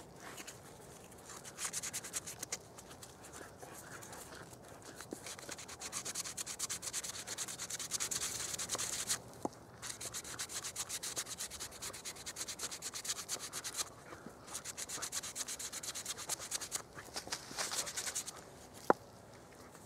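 Abrasive cloth rubbed fast back and forth on a birch log section, a scratchy sanding in several spells with short pauses. A single sharp click comes near the end.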